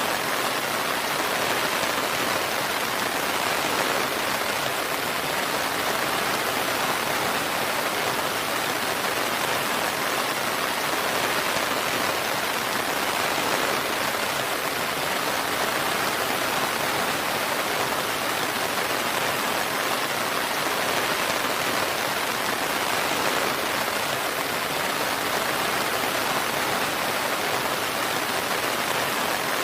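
Steady rain falling, an even hiss with no thunder or separate drops standing out.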